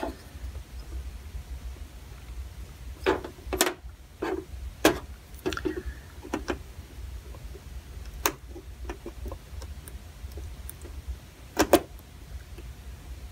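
Scattered clicks and faint scraping of a pointed hand tool picking hardened glue off a small capacitor on a circuit board, with a handful of sharper clicks spread through. A low steady hum runs underneath.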